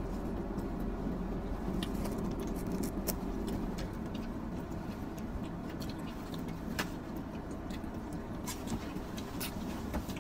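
Steady low hum of a car's cabin with the engine running, with scattered light clicks and rustles from hands handling food and paper napkins.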